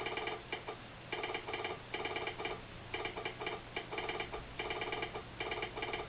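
Telegraph sounder clicking out Morse code for a railroad train order, in quick irregular groups of clicks with short gaps between letters and words, stopping near the end.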